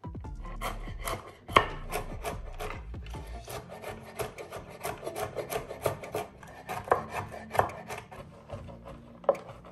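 Chef's knife chopping pecans on a wooden cutting board: quick, even knocks of the blade against the board, several a second, with one sharper knock as the chopping begins.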